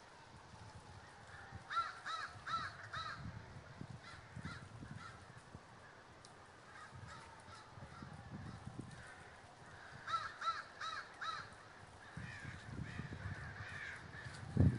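A large flock of American crows cawing overhead as they gather at dusk, with runs of four quick caws about two seconds in and again about ten seconds in, among many scattered others. A low thump near the end.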